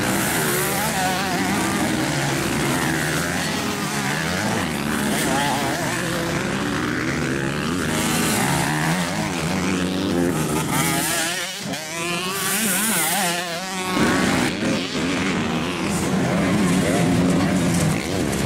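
Several motocross bikes revving hard through a dirt-track corner. Their overlapping engine notes rise and fall as riders pass one after another.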